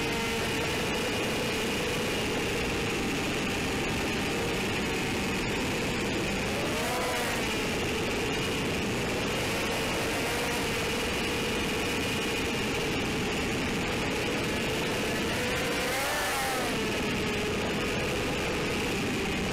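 ZMR180 racing quadcopter's brushless motors and propellers whining steadily, heard from the onboard camera, with the pitch swooping up and down about seven seconds in and again about sixteen seconds in as the throttle changes. A low rumble of air buffeting runs under the whine.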